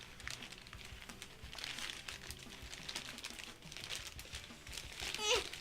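A bag and packaging crinkling and rustling as a child rummages inside and pulls items out, with a brief voice sound near the end.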